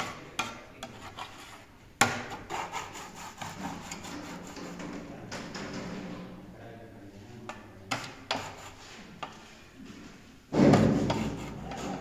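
A trowel scraping wet plaster along a metal guide frame over a panel mould, with repeated clicks and taps of the blade. A louder thump comes about ten and a half seconds in.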